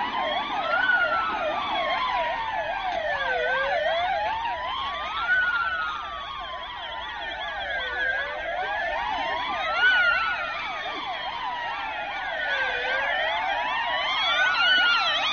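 Police car sirens, at least two sounding at once: a slow wail that rises and falls about every four and a half seconds, layered over a fast warbling yelp.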